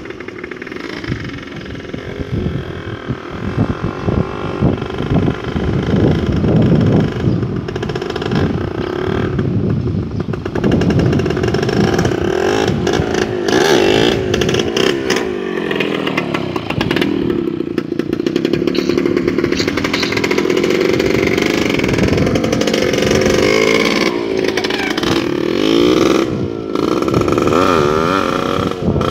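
Suzuki X4 125 two-stroke single-cylinder motorcycle ridden toward and past, then away, its engine revving up and down. The pitch rises and falls with each throttle change, loudest as the bike comes close.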